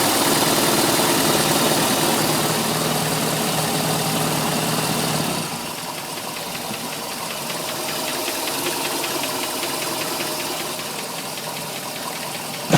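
MerCruiser 3.7 four-cylinder marine engine running above idle, then dropping back to idle about five seconds in, where a rapid, even ticking comes through. The tick shows only from idle to about 1000 rpm and the owner has not found its cause.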